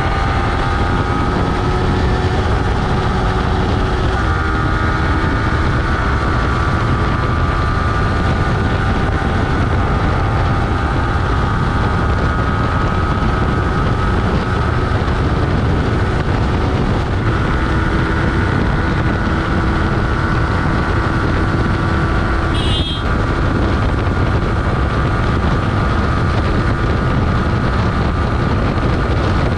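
Yamaha R15 V3's 155 cc single-cylinder engine running hard at high, near-steady revs on a top-speed run, its pitch creeping up slightly at first and then holding, over a low rumble of wind and road. A brief click comes about three quarters of the way in.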